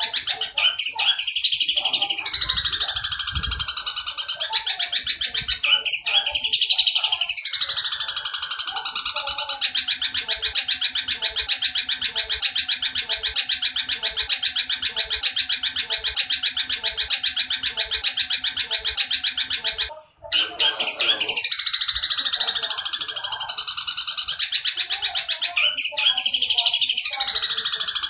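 Long-tailed shrike (candet) mimicking the harsh chattering calls of an Oriental dollarbird (tengkek buto). Repeated falling, rasping phrases give way about ten seconds in to a fast continuous rattle lasting about ten seconds. After a brief break the falling phrases resume.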